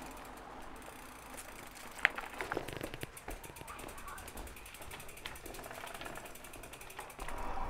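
Freewheel of an e-mountain bike's rear hub ticking rapidly as the bike coasts, with a few louder clicks and knocks from the bike, one about two seconds in.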